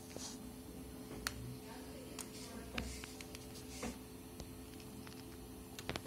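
An Alexandrine parakeet handling a ballpoint pen with its beak and feet on a paper notebook: a handful of sharp clicks and taps with brief rustles of paper. A steady low hum sits underneath.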